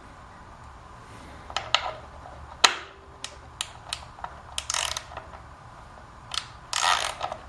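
Socket ratchet wrench clicking in short bursts as it loosens the bolts of a motorcycle air-cleaner backing plate, with one sharp metallic click about two and a half seconds in.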